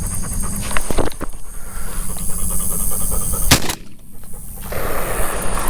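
A single shotgun shot fired at a passing dove about three and a half seconds in, with rumbling noise on the microphone around it.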